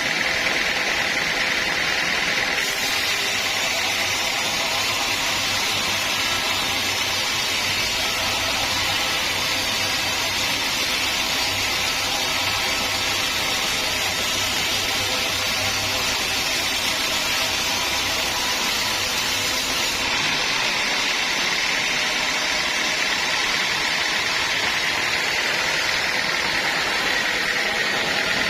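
Sawmill machinery running steadily in a constant dense din, cutting teak logs. A sharper high hiss joins about three seconds in and drops away about twenty seconds in.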